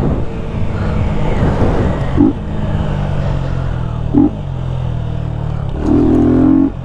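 Yamaha Fazer 250 single-cylinder engine running steadily under way, with its air filter removed. Brief higher-pitched sounds come in twice, and a longer one near the end.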